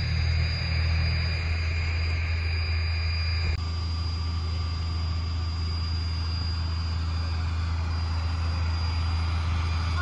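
Steady low engine drone with a thin high whine above it, shifting slightly about three and a half seconds in.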